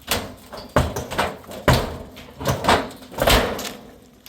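Five heavy bangs in a row, under a second apart, each ringing out briefly: a man striking the wall of a wooden shed by hand to knock it down.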